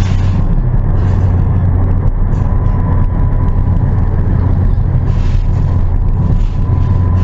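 Ford Fiesta driving, heard from inside the cabin: a steady low engine and road drone with a faint high whine running through it.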